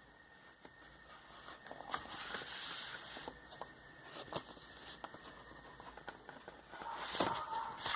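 Vinyl record packaging being handled: rustling and crinkling of plastic and paper sleeves, with scattered small clicks and taps, in two longer stretches a few seconds apart.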